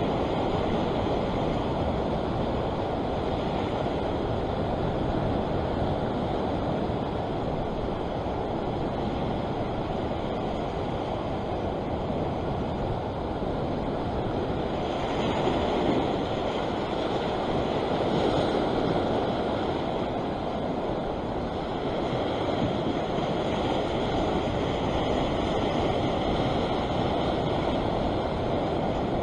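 Sea surf washing and breaking over a rock ledge, a steady rush with a couple of louder surges a little past halfway, with wind buffeting the microphone.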